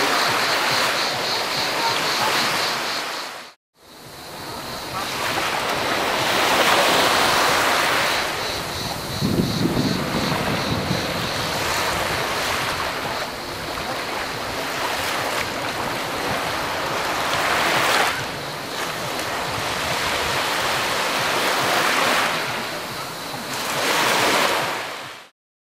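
Small Mediterranean waves breaking and washing up a sandy beach, swelling several times, over a steady pulsing buzz of cicadas. The sound drops out for a moment about three and a half seconds in, and cuts off near the end.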